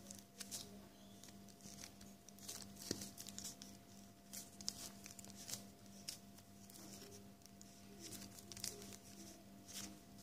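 Glitter slime being kneaded and folded by hand, giving faint, irregular sticky clicks and crackles as it is pressed and pulled, over a faint steady hum.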